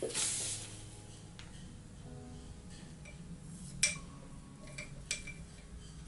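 A brief swish of a hand sliding over the painting paper at the start, then two light, sharp clinks about a second and a quarter apart, each with a short ring.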